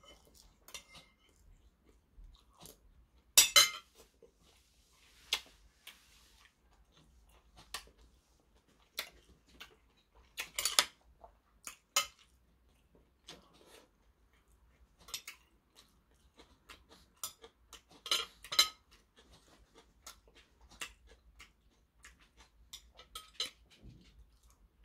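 Metal chopsticks and a metal spoon clinking and scraping against a porcelain bowl, in sharp clicks spaced irregularly with a few louder ones, with chewing between.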